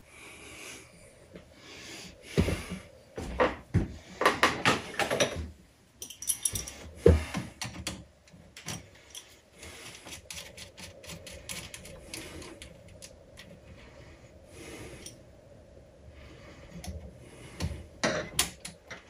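Irregular clicks, taps and short scrapes of hands working on a pinball machine's dot-matrix display panel, handling its metal mounting nuts and ribbon cable. The busiest, loudest clatter comes a few seconds in, with another burst near the end.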